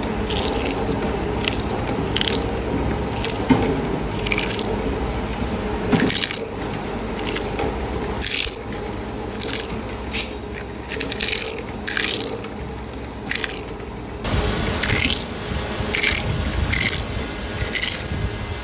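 Electric grinder running against a soft rubber item to strip off dried paint: a steady high motor whine under a continuous grinding noise, with repeated short rasping strokes as the tool is worked over the surface. The sound changes abruptly about fourteen seconds in.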